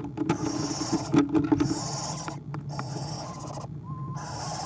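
Eastern screech owls in a nest box: two short, soft, low pulsed calls in the first two seconds, with a breathy, raspy hiss repeating roughly once a second.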